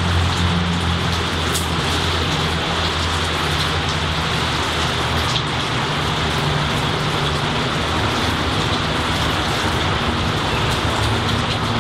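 Steady rainfall on trees and a flower garden, an even hiss throughout. Underneath runs a low droning rumble that fades about halfway through and comes back faintly near the end.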